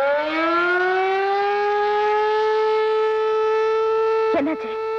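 Rooftop motor-driven factory siren winding up, its pitch rising over the first two seconds, then holding a steady wail. It is sounding the alarm for an accident in the factory, where a worker's hand has been caught in a machine.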